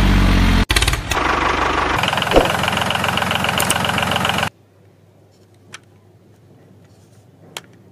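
Tractor engine sound: an engine starts with a loud low pulsing, runs for about four seconds and then cuts off suddenly. A few faint clicks follow.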